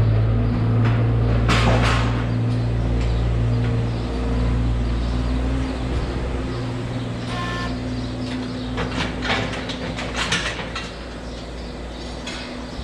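A steady low machine drone, like an engine or motor running, with scattered knocks. The drone fades over the second half, and a brief higher-pitched squeak or call comes about seven seconds in.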